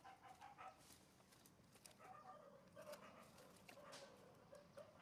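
Infant macaque giving a run of short, faint whimpering squeaks, with scattered light clicks.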